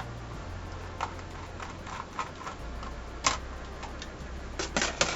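Scattered small clicks and taps from the internals of an IBM ThinkPad T30 laptop being handled while taking it apart, as the mini PCI card is worked loose. The sharpest click comes about three seconds in, and a quick run of clicks comes near the end.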